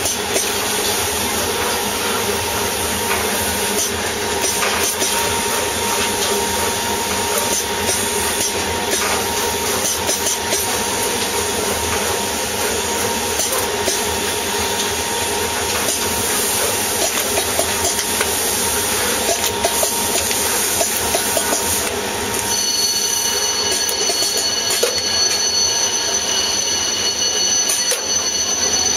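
Selective conformal coating machine at work: a steady mechanical and air noise with a faint steady tone. About three quarters of the way through, a high steady tone with overtones comes in and holds.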